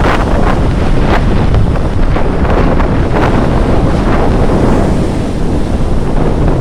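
Storm waves on the Sea of Azov crashing and washing in, with strong wind buffeting the microphone as a heavy rumble. Surges of surf about one and three seconds in.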